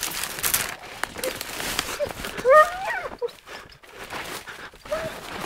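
A young hunting dog yelping in short cries that rise in pitch, the loudest about two and a half seconds in, with several fainter yelps around it, over the rustle of brush being pushed through.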